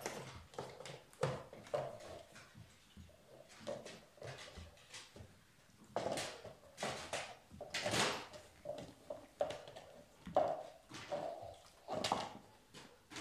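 German Shepherd puppies playing on a wooden floor: irregular knocks, scuffles and scrabbling of paws as they tug and chew a rope toy, with a few louder bumps.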